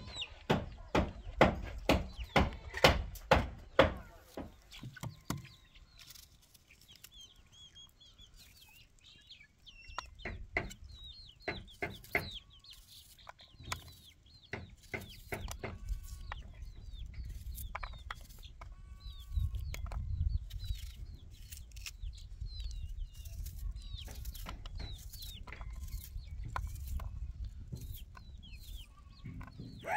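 Chickens clucking, with short high chirps here and there. In the first few seconds a run of sharp knocks, about two a second, is the loudest sound, and a low rumble runs under the second half.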